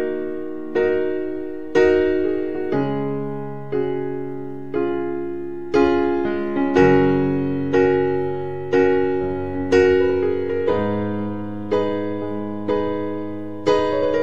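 Background piano music: soft keyboard chords struck about once a second, each fading away before the next.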